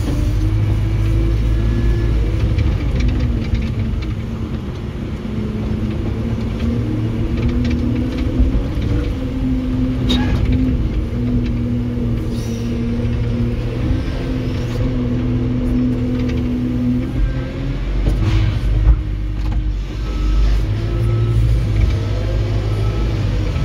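Telehandler's diesel engine running, heard from inside the cab, its pitch rising and falling as the machine is driven and manoeuvred, with a few knocks and rattles along the way.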